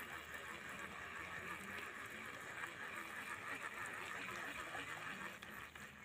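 Faint, steady outdoor background noise: an even hiss centred in the mid range, with a few small ticks. It drops away right at the end.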